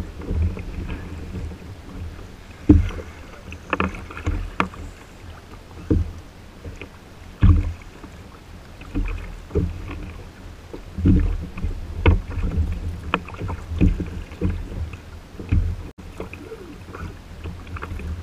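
Water slapping against a Hobie Outback kayak's hull on choppy water, with irregular low thumps and a scattering of sharp knocks.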